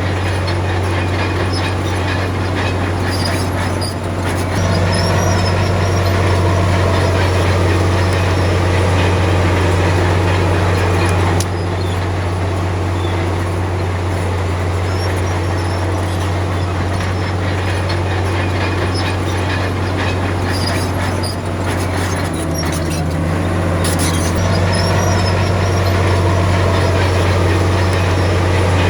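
Komatsu D53P bulldozer's diesel engine running with a steady low drone and a rattle of clanking. It grows louder about four seconds in, drops back near twelve seconds, and rises again for the last few seconds.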